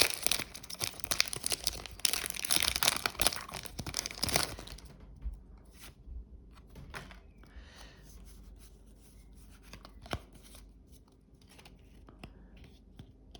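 Foil Pokémon booster pack wrapper being torn open and crinkled. About four and a half seconds in it quietens to soft scattered ticks and rustles.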